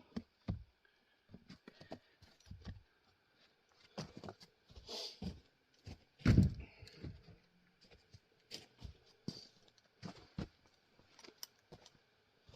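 An axe striking and splitting a round of grand fir: one hard, sharp blow about six seconds in, among lighter knocks and clatter of wood being handled.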